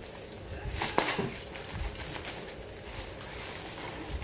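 Paper gift wrapping and plastic bags rustling and crinkling as they are handled, with a sharp snap about a second in.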